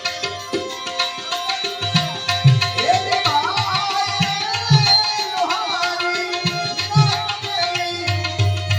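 Gujarati devotional bhajan music: tabla playing a steady rhythm under sustained held tones, with a wavering, ornamented melodic line over the middle few seconds.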